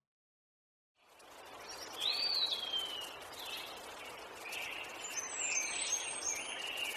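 About a second of silence, then an outdoor nature ambience fades in: a steady hiss with birds chirping and calling, including a rising-then-falling call about two seconds in and quick high chirps near the end.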